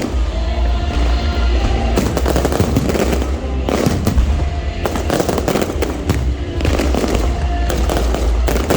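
Aerial fireworks firing in a rapid, near-continuous barrage of bangs and crackles, with thicker clusters about two seconds in, around four to five seconds in, and near the end.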